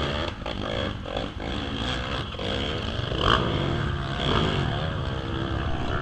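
A vehicle engine running under load, its pitch rising and falling as the revs change, over a steady low rumble.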